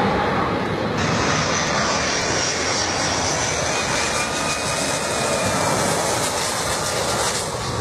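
Jet airliner's engines on low final approach, passing close overhead: a loud, steady rush with a high whine that comes in about a second in.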